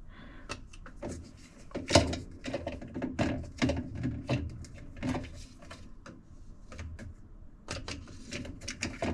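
Hard plastic washing-machine agitator parts knocking and clicking as they are turned and fitted back together by hand: a run of irregular clicks, the loudest knock about two seconds in.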